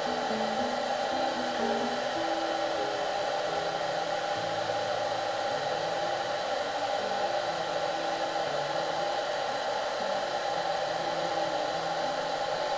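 Philips Champ 1200 handheld hair dryer blowing steadily on its hottest setting.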